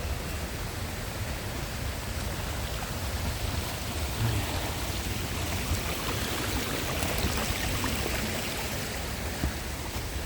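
Steady rush of a river flowing through a gorge below, with a low rumble underneath.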